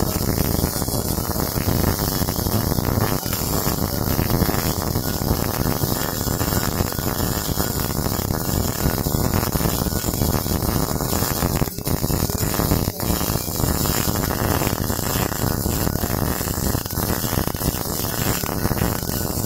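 MIG welding arc crackling and sizzling steadily as a weld bead is run, broken off twice for an instant a little past halfway.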